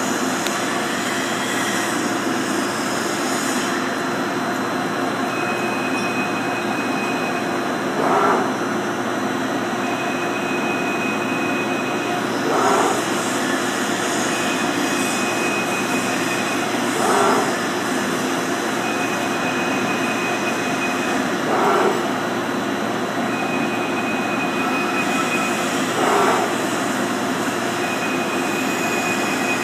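ROMI M 27 CNC lathe cutting a 3/4 UNC thread in 416 stainless steel pass after pass, with the machine running steadily underneath. The cycle repeats about every four and a half seconds: a thin high tone for about two seconds, then a short louder surge.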